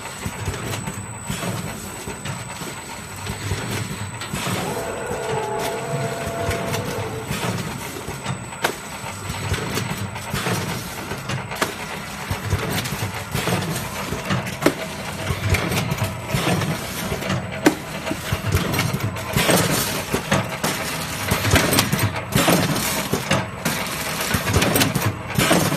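Automatic vertical salt packing machine running: a steady mechanical hum with frequent clicks and clatter from its mechanism, growing busier in the second half.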